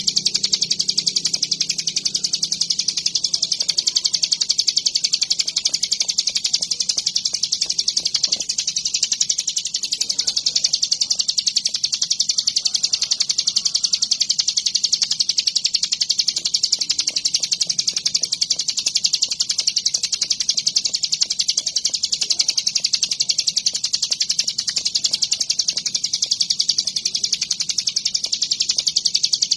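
Ciblek gunung (a mountain prinia) singing without pause: a high, fast trill of rapidly repeated notes, even and unbroken.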